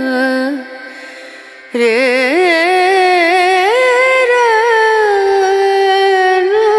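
Background song: a voice sings long, ornamented notes in an Indian melodic style, drops away briefly about half a second in, then starts a new phrase just under two seconds in and holds it.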